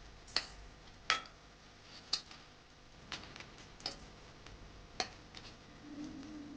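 Sharp, irregular clicks and taps of kitchen utensils, roughly one a second. A faint low hum comes in near the end.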